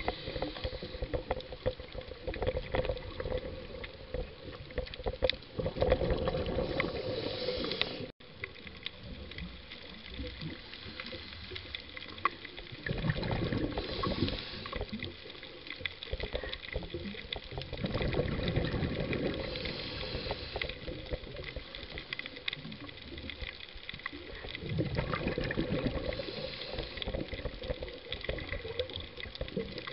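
A scuba diver's breathing heard underwater through the camera housing: regulator breaths with louder rushes of exhaled bubbles about every six seconds, over a steady watery hiss. The sound cuts out briefly about eight seconds in.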